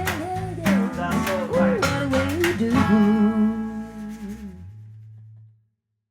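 An acoustic blues band plays the closing bars of a song: strummed guitar and bass under a sliding melody line. About three seconds in, the band lands on a final chord. The chord rings and dies away, with the low bass note lasting longest, to silence about five and a half seconds in.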